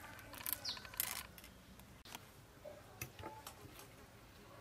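Faint clicks and scrapes of a metal fork on grilled fish paste wrapped in banana leaf, a handful of separate ticks. A single short falling bird chirp a little under a second in.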